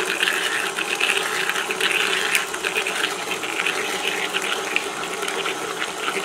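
Electric stand mixer running steadily on its lowest stir speed, the beater churning creamed butter and sugar in a steel bowl, with a motor hum and small scattered clicks.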